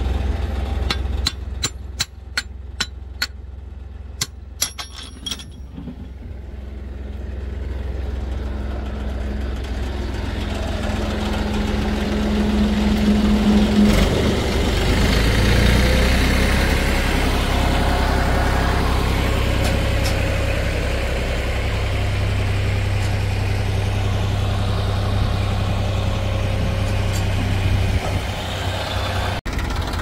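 Diesel engine of heavy machinery running steadily, getting louder from about eight seconds in. A quick string of sharp clicks sounds in the first few seconds.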